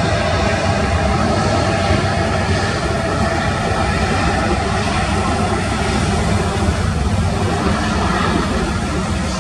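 Boeing 787's twin turbofan engines at takeoff thrust as the airliner accelerates down the runway: a loud, steady jet noise with a deep rumble underneath.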